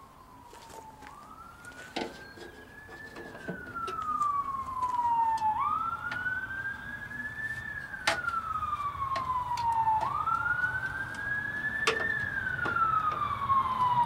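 Emergency vehicle siren in a slow wail, sweeping up and down about every four and a half seconds and growing steadily louder as it approaches. Now and then a sharp metal clink from a wrench on a bolt.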